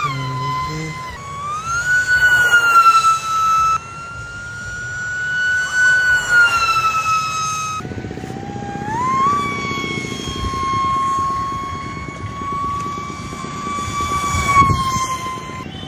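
Brushless electric motor and propeller of a small cardboard RC plane whining, the pitch rising, holding and dropping as the throttle changes. About halfway through, a rough rushing noise joins underneath the whine.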